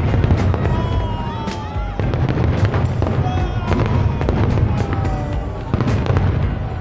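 Fireworks going off in quick succession: repeated bangs and crackles over a dense low rumble, mixed with music.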